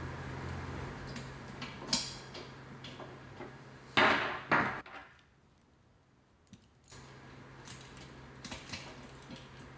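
Metal snap hooks clicking and clinking against the metal rings on a chair's fabric cover as a resistance tube is clipped on: a sharp click about two seconds in, two louder clanks about four seconds in, then a short quiet spell and a few light clicks.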